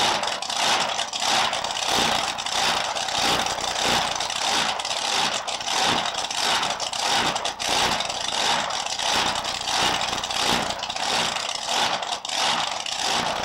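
Supercharged V8 drag-racing engine running at idle with a rhythmic lope, pulsing about twice a second.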